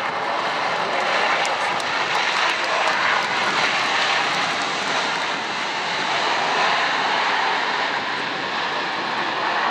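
Airbus A380 rolling out on the runway just after touchdown, its four jet engines giving a loud, steady rush of noise.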